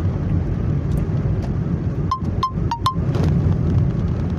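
Car driving, heard from inside the cabin as a steady low rumble of road and engine noise. A little over two seconds in, four short high beeps sound in quick succession.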